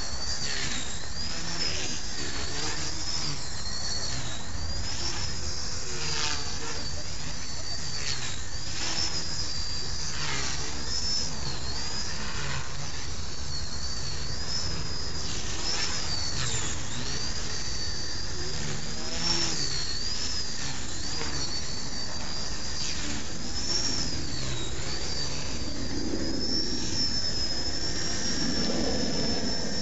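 Blade mCP X micro RC helicopter in flight: a high electric motor and rotor whine that rises and falls in pitch as the throttle changes.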